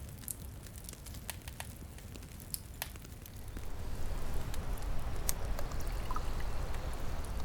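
Rushing river water, a steady wash with scattered sharp clicks and drips, swelling louder about three and a half seconds in.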